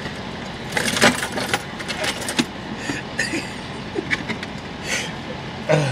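Steady hum of a vehicle cabin at idle, with scattered short rustles and clicks over it.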